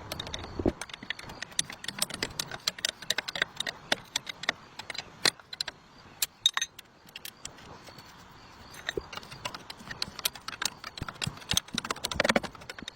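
Irregular sharp clicks, clinks and knocks, as of metal tools and parts being handled, coming thicker near the end.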